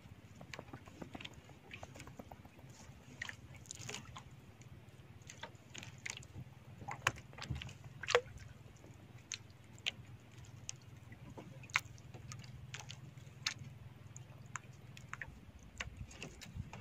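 Fishing handline being hauled in hand over hand: irregular light clicks and rustles of line and hands, over a steady low hum.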